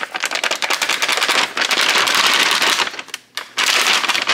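Paper pouch of cookie mix crinkling and crackling as it is handled and opened over a bowl, a dense run of sharp crackles that eases off briefly a little after three seconds in.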